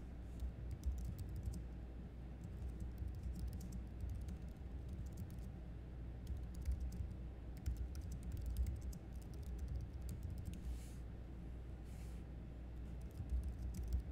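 Irregular light clicking, densest in the first few seconds, over a low steady hum, with a couple of soft swishes near the end.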